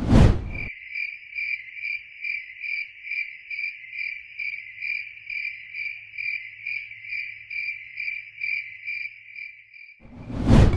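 Cricket chirping sound effect: a steady, even chirp about twice a second. It is opened by a short loud whoosh and closed by another near the end.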